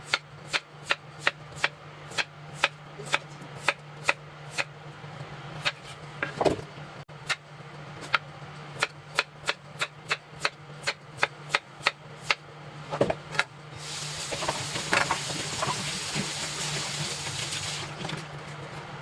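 A kitchen knife chopping Chinese yam on a cutting board in steady strokes, about two to three a second, with a short pause partway through. Near the end, running tap water takes over for about four seconds.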